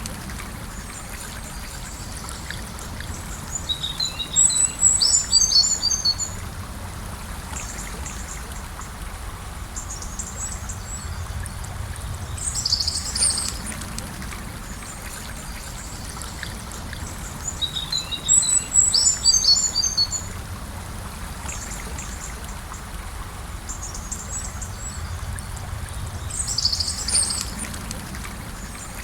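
Gentle river flowing with a steady rushing sound, while a songbird sings short twittering phrases every few seconds.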